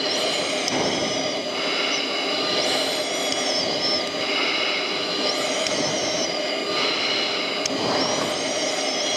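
Steady jet aircraft noise in flight: engine running and air rushing past, heard aboard the aircraft carrying the camera, with a few faint steady high tones over it.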